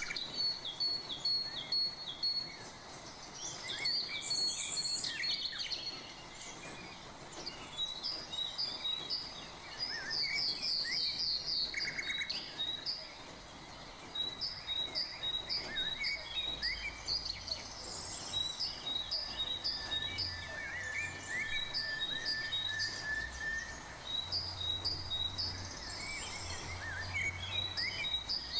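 Birds chirping in the background: short high chirps repeated in quick series, about two or three a second, with a low hum coming and going in the second half.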